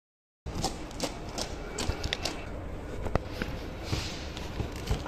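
Irregular clicks and knocks, roughly two a second, over a rustling haze, starting abruptly about half a second in: footsteps and handling noise from a hand-held camera carried along beside the tram tracks.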